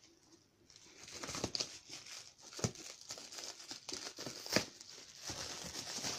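Black plastic wrapping on a cardboard parcel crinkling and rustling as it is handled and unwrapped, with a few sharp crackles, the loudest about two and a half and four and a half seconds in.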